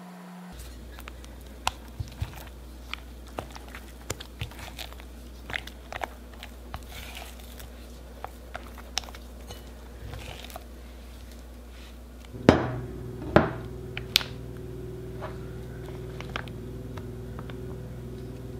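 Spatula knocking and scraping against a glass mixing bowl while thick cookie dough is stirred, giving many small sharp clicks. About two-thirds through come a few louder knocks, and a steady low hum sets in and carries on.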